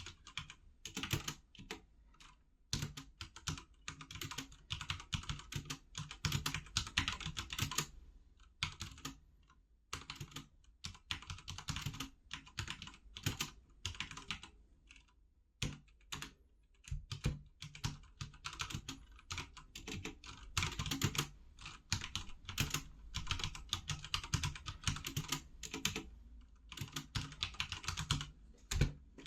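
Typing on a HyperX Alloy FPS Pro TKL mechanical keyboard with Cherry MX Red linear switches: fast runs of keystrokes with short pauses, the clearest about a third of the way in and just past halfway.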